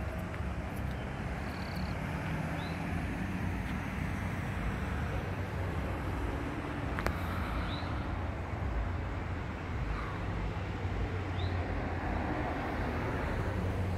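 A steady low engine drone, with a bird's short rising chirps repeating every few seconds and a single sharp click about halfway through.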